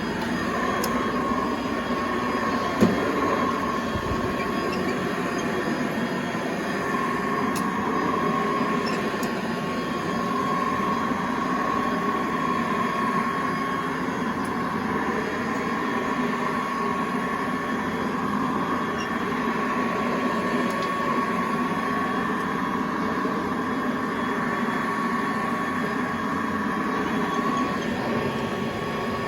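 1921 Hoover Model 105 upright vacuum cleaner running steadily, a constant motor whine over a rumble, with one short knock about three seconds in.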